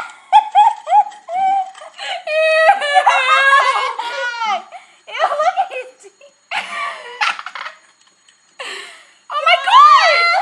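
Two young women giggling and squealing with high-pitched laughter in bursts and short breathy laughs, with a louder squealing outburst near the end.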